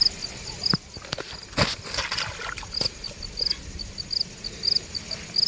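Cricket chirping steadily in short high pulses, while a large rohu thrashes at the water's edge, with a few splashes and knocks about a second and a half to three seconds in.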